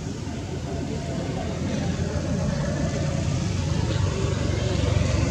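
Low, steady rumble of a motor vehicle's engine running nearby, slowly growing louder.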